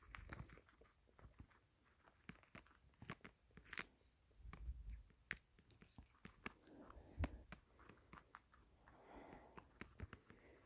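A pet pig chewing a raw carrot: faint, irregular sharp crunches and chewing.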